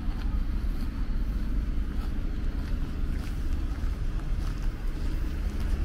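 A steady low rumble of outdoor town ambience, with faint scattered ticks above it.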